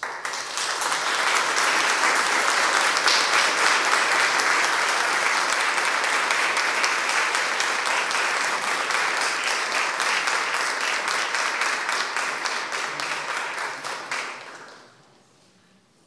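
A small seated audience applauding. The clapping starts at once, holds steady for about fourteen seconds, then dies away.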